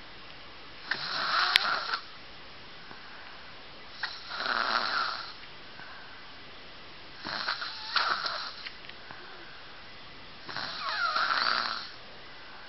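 A sleeping person snoring: four long snores, each a little over a second, coming about every three seconds with quiet breathing between.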